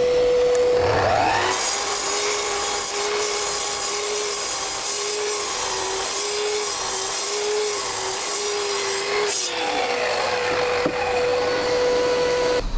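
Electric saw cutting through a 6.5 cm square pine beam. The motor's whine drops in pitch about a second and a half in as the blade bites, stays lower and wavering with a hiss of sawing for about eight seconds, then rises back to free-running speed and keeps running near the end.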